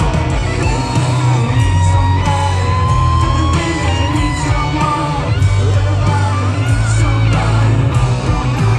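Rock band playing live in a stadium, recorded from the crowd: a pitch-bending electric guitar lead line over heavy bass, drums and keyboards, with crowd voices mixed in.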